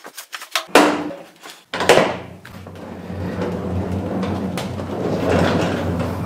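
Sharp knocks and clanks from an old metal drawer cabinet, then from about two seconds in a steady rolling rumble as the cabinet is pushed across the floor on newly fitted retractable workbench casters.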